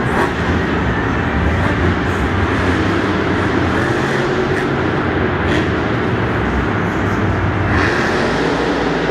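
Monster truck engines running, a steady, loud drone heard across an enclosed stadium.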